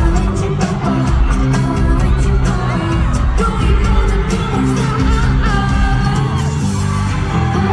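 K-pop song played loud over a concert sound system, with female vocals over a heavy bass line and a steady beat.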